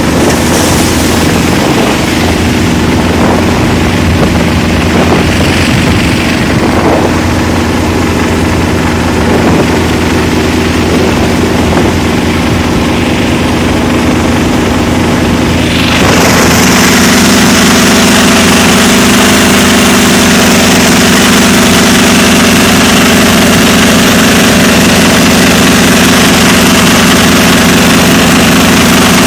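21 hp Dixie mud motor (air-cooled surface-drive boat engine) running steadily under way. About 16 seconds in it suddenly becomes louder and fuller, with a rush of water spray from the prop wash added.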